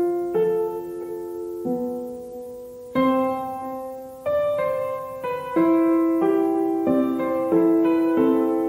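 Background music: piano playing slow chords and notes, a new one struck every second or so and left to ring and fade.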